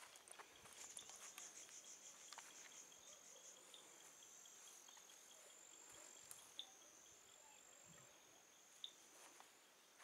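Faint insect song from the forest: a high, thin, steady trill that pulses rapidly over the first few seconds, then holds and shifts pitch in small steps. Under it runs a fainter, lower ticking, with a few scattered clicks.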